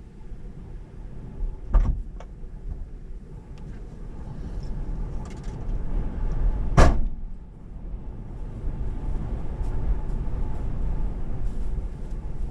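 Steady low rumble, with two sharp knocks: a lighter one about two seconds in and a louder one about seven seconds in.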